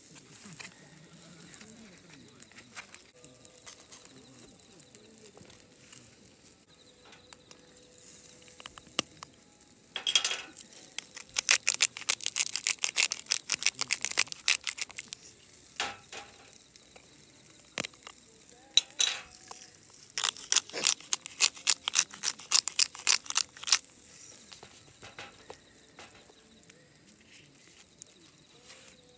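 Hand-twisted salt and pepper grinders grinding over a steak: two bouts of rapid clicking, each about five seconds long, the first about a third of the way in and the second after a short pause.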